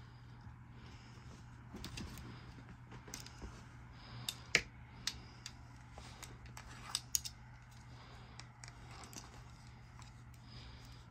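A back scratcher scratching over a cat's fur on a leather chair: irregular light scratches and sharp clicks, the loudest near the middle, over a faint low steady hum.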